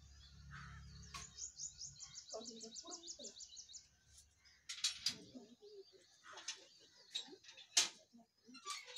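A small songbird singing a fast trill of high notes, about eight a second, for a few seconds. It is followed by a few short sharp high sounds, the loudest near the end.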